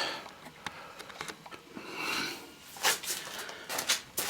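Faint rustling and handling noise, with a few light clicks and knocks near the end, as wiring and parts at a fuse box are handled.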